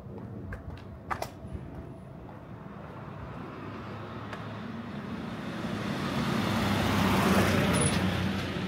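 A motor vehicle approaching and passing close by: its engine and tyre noise swell steadily to a peak about seven seconds in, then begin to fade. A few light clicks sound about a second in.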